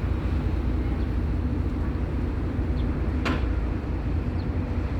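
Harbour ferry engine running with a steady low rumble and hum, with a single sharp knock about three seconds in.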